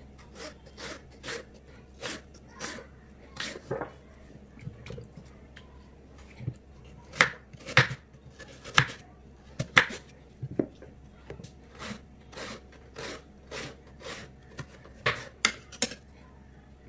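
Kitchen knife slicing raw potato into French fry strips on a wooden cutting board: a run of irregular knife taps against the board, about two a second. A handful of louder taps come around the middle and again near the end.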